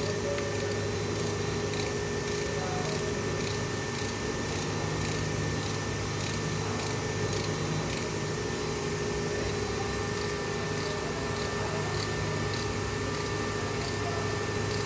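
A hand-held power tool running steadily while working a crack in a cast-iron cylinder liner during a metal-stitching repair: an even hum and hiss with faint regular ticking.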